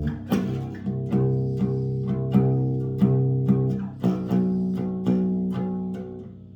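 Bass guitar played freestyle: a run of plucked, ringing notes about three a second, shifting to a different set of notes about four seconds in and fading out near the end.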